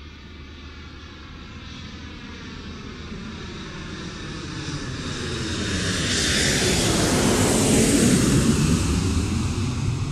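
Airliner passing low directly overhead on its landing approach. Its engine noise swells steadily, peaks about seven to eight seconds in, then begins to fade, with a sweeping whoosh as it goes over.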